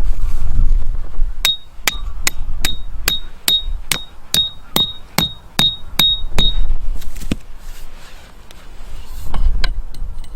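Hammer striking metal, most likely a steel tent peg being driven into the ground: a steady run of about thirteen ringing blows, between two and three a second, stopping about two-thirds of the way in.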